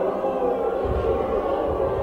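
A group of people singing freely and individually at the same time: many overlapping held vocal tones at different pitches, not in unison, blending into a continuous wash of voices.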